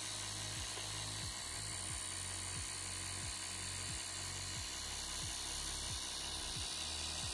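Steady hiss of air and fuel flowing out of a homemade brass torch burner, with the whine of the small electric motor pump that feeds it.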